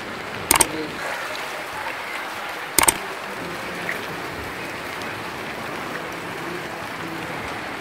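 Steady rush of rain and floodwater in a waterlogged street, broken twice by sharp clicks from a subscribe-button animation's sound effect, about half a second and three seconds in.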